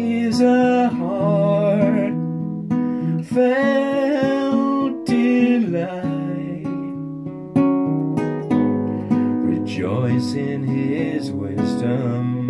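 A song with a strummed acoustic guitar, and a wavering melody line in several phrases over the chords.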